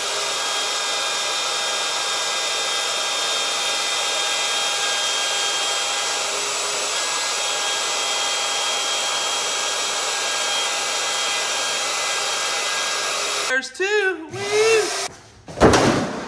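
Electric router running at a steady high speed with a constant whine, routing hinge recesses in a door; it cuts off suddenly about three-quarters of the way through. A few short squeaky rising-and-falling sounds follow, then a loud thump near the end.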